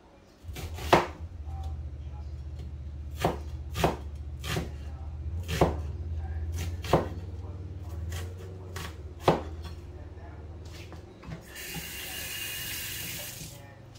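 Kitchen work during food preparation: about ten sharp knocks at uneven spacing, like utensils and cookware being handled, over a steady low hum. Near the end comes a hiss of about two seconds.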